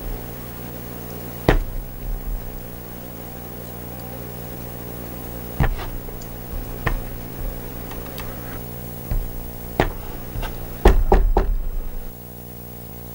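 Knuckles knocking on a wooden cabin door: a few single sharp knocks and clicks several seconds apart, then a quick run of about four knocks near the end. A steady low hum runs underneath.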